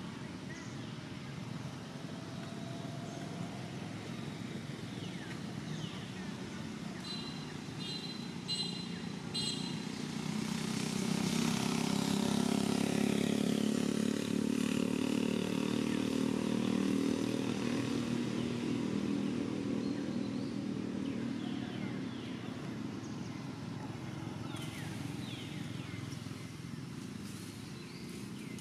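A motor vehicle's engine going by, growing louder from about ten seconds in and fading away over the next ten seconds, over steady background noise. A short run of high chirps comes just before it.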